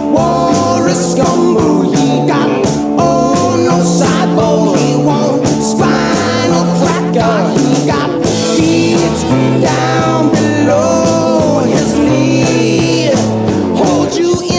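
Rock song playing: a singing voice over a repeating bass line and drums.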